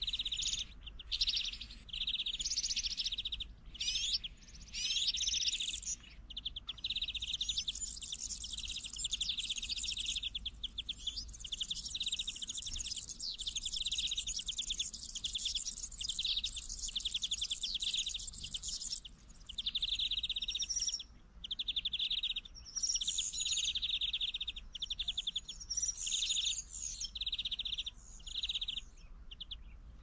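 European goldfinches singing: fast twittering phrases, one after another with only brief pauses.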